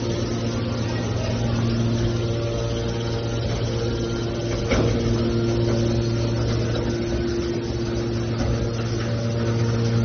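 Hydraulic scrap metal baler's power unit running with a steady hum and drone, with a single short knock about five seconds in.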